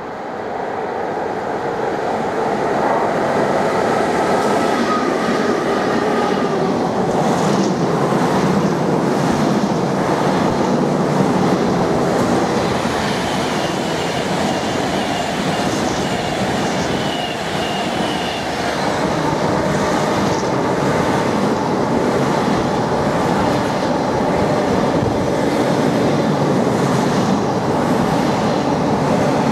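Freight train headed by two Class 90 electric locomotives approaching and passing, building up over the first few seconds. It is followed by a long rake of intermodal container wagons rolling by with a steady rumble and rhythmic clicking of wheels over rail joints. A faint high wheel squeal comes partway through.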